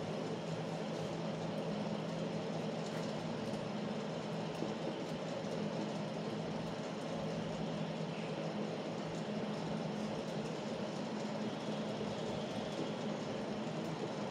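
A steady mechanical hum with a constant low drone that does not change.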